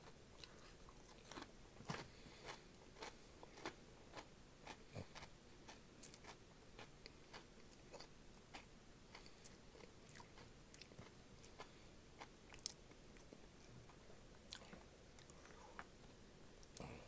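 Faint close-up chewing: irregular small crunches and wet mouth clicks of someone eating crunchy Flamin' Hot Cheetos and a sausage in a bun.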